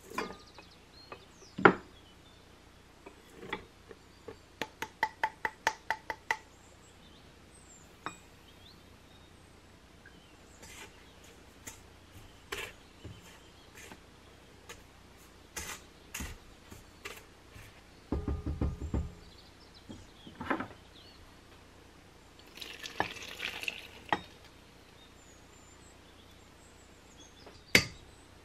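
Kitchen handling sounds at a stainless steel stand-mixer bowl: scattered knocks and scrapes of a silicone spatula and bowls, with a run of about eight quick taps that ring briefly about five seconds in. Past the middle comes a brief low buzz, then a short pour of liquid, and a sharp knock near the end.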